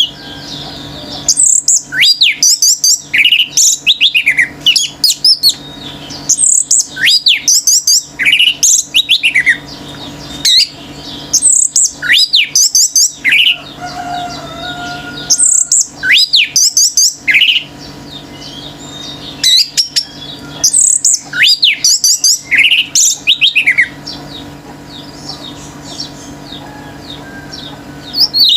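Orange-headed thrush singing loud phrases of sweeping whistles and rapid trills, in bouts of a few seconds separated by short pauses. The song drops to quieter scattered notes for the last few seconds. A faint steady hum runs underneath.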